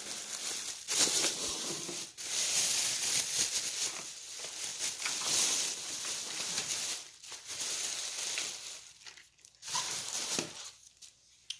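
Plastic bag rustling and crinkling as items are pulled out of it, in uneven stretches with short pauses, the longest near the end.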